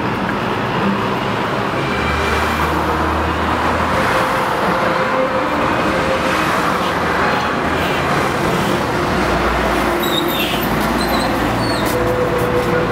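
Steady city street traffic noise from cars driving past on the road, with a couple of short high squeals near the end.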